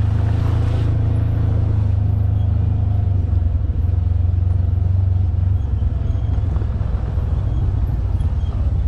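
Polaris General XP 4 side-by-side's engine running steadily under way, a low continuous drone, with a brief hiss about half a second in.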